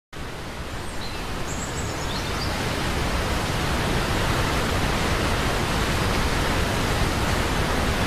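Tall plunge waterfall rushing steadily: a dense, even noise of falling water that grows slightly louder over the first few seconds.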